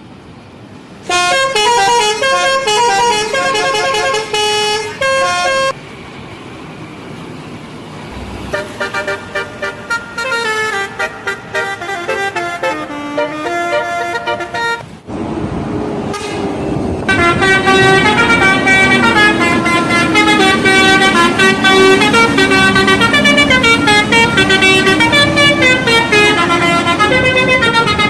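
Bus telolet horns playing quick, stepping multi-note tunes in three separate runs: one starting about a second in and lasting some four seconds, a second from about eight and a half seconds, and a longer, louder one from about seventeen seconds to near the end. A low rumble sits beneath from about fifteen seconds on.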